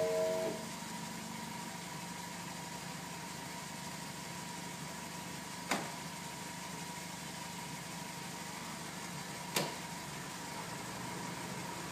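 Daihatsu Copen's small engine idling with a steady hum, after the electric folding roof's pump whine cuts off about half a second in. Two sharp clicks come about four seconds apart.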